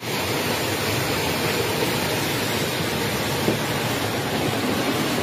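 A torrent of muddy floodwater rushing by: a loud, steady rush of water.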